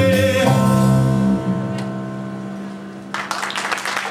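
A small live band of keyboard, guitar and drums ends a song on a held final chord that fades away. About three seconds in, audience applause breaks out.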